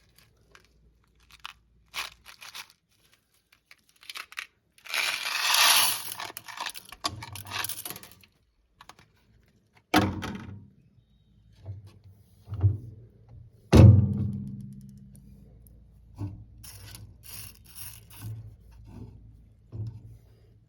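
Miniature toilet flushing Nerds candy: scattered small clicks and knocks, then a rushing wash lasting about three seconds, starting about five seconds in. Two sharp knocks with ringing come about ten and fourteen seconds in.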